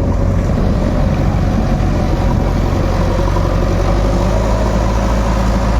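Diesel engine of a JCB 3DX backhoe loader running steadily, a deep, even drone.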